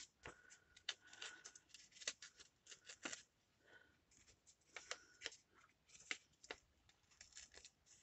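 Paper being worked by hand at its edges to make it look aged: scattered short, crisp rustles and clicks, quiet, with brief pauses between them.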